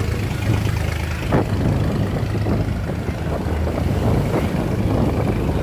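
Boat engines running steadily with a low drone as barges and a coconut boat pass close by.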